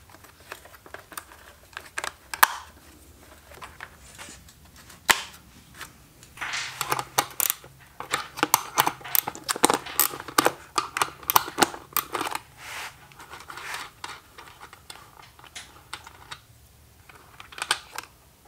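Hand tools and small parts clicking and tapping while the rear fender and tail light of a Honda CRF450RL are worked on: a few scattered clicks, then a dense run of quick clicks and rattles through the middle.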